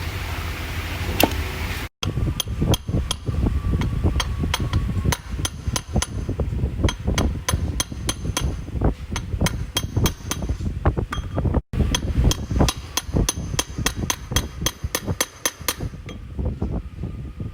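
Hammer tapping repeatedly on metal parts during a car transmission strip-down: quick, irregular strikes, several a second, broken by two abrupt cuts.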